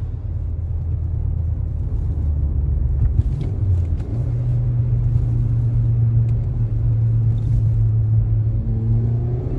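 Suzuki Swift Sport ZC33S's 1.4-litre K14C turbocharged four-cylinder, with a high-flow turbo and HKS Hi-Power Spec L exhaust, heard from inside the cabin. The revs drop off at the start, then it runs as a low steady drone off the throttle, with the revs starting to climb again near the end.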